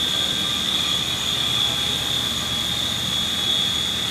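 Haas VF vertical machining center running, a steady high-pitched whine over a low hum.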